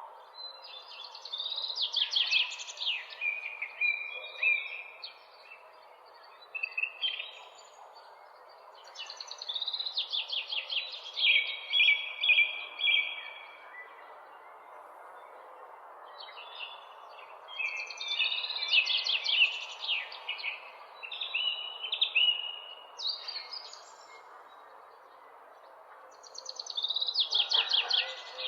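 A songbird singing phrases of rapid notes and trills that come back about every eight seconds, over a steady hum of distant city noise.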